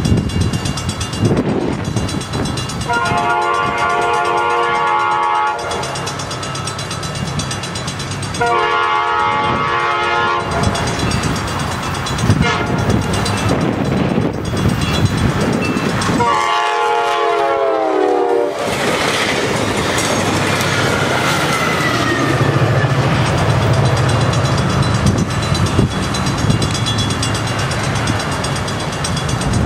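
NCTD Coaster commuter train's K5LA air horn sounding three long blasts as it approaches, the last one dropping in pitch as the cab car passes. The train then rushes by, with the low rumble of its F40PHM-2C diesel locomotive's engine near the end.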